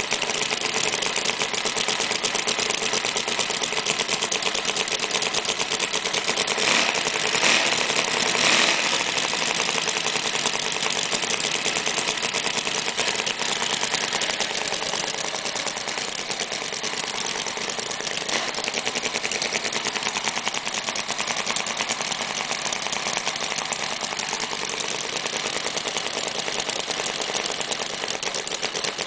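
Hand-built 44 cc spark-ignition model V8 engine running with a rapid, even firing, briefly louder twice about seven and eight and a half seconds in.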